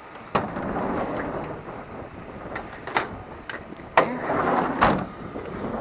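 Steady rumble of a van with a few sharp knocks and clunks. One comes right at the start as the rumble sets in, and the loudest comes about four seconds in.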